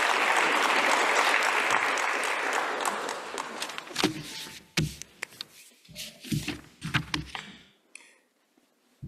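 Audience applauding, fading out about three seconds in, followed by a few scattered clicks and knocks.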